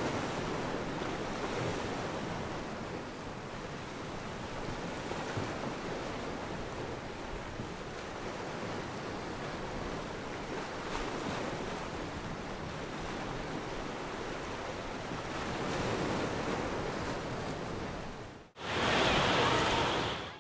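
Ocean surf, a steady wash of waves. It cuts out briefly near the end and comes back louder.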